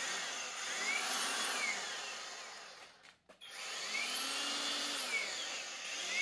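EGO 56V power head's electric motor running with the edger attachment fitted, its whine swelling and sinking in pitch; it cuts out about three seconds in and starts again. The edger blade does not turn, caused by a drive snap ring pushed out of its groove.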